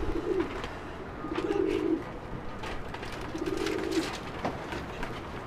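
Domestic pigeons cooing: a low, purring coo about every two seconds, with scattered light clicks between.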